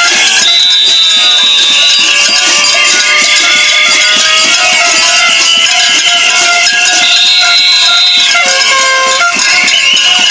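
Many hand-held air horns blowing together in overlapping held blasts at different pitches, some blasts sagging slowly in pitch, over a dense, rapid clatter.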